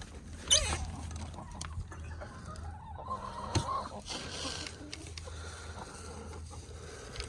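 Domestic hens calling: a loud, sharp squawk about half a second in and a short run of clucking near the middle, over a light patter of movement.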